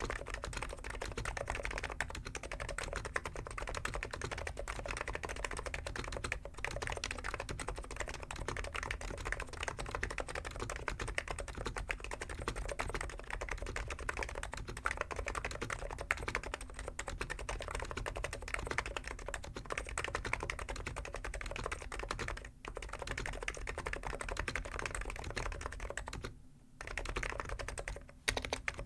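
Fast, continuous typing on a Hansung GK893B keyboard with stock, unlubed 50g electro-capacitive (Topre-style) switches, the keystrokes running together in a dense stream. It breaks off briefly about three-quarters of the way through and again near the end.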